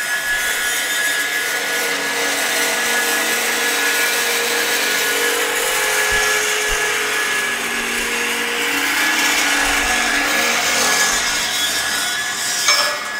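Hyd-Mech S20 horizontal metal-cutting bandsaw running its blade through stock on a 60-degree mitre cut at medium down-feed: a steady hiss of cutting with a few steady tones from the saw. A single knock near the end as the cut finishes.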